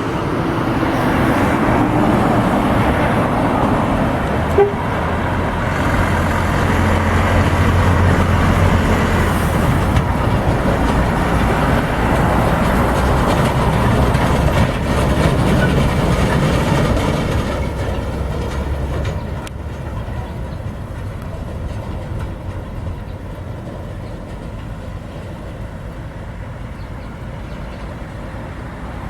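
Truck on the road: steady engine and road noise, fuller and louder for the first two-thirds, then easing to a quieter steady drone.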